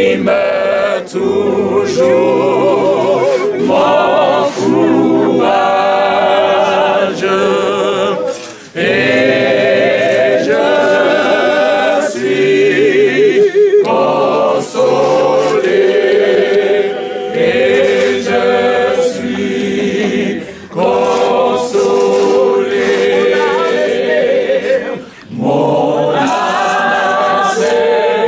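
A crowd of mourners singing a French hymn together, unaccompanied, in phrases separated by short breaths.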